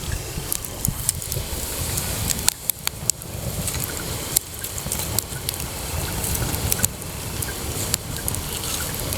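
Wood bonfire burning, crackling with frequent sharp pops and snaps over a steady low rumble.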